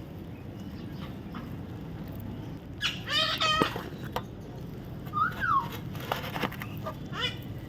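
Baby parrot calling: a short warbling call about three seconds in, a quick rising-and-falling squeak about two seconds later, and a brief call near the end, over low steady background noise.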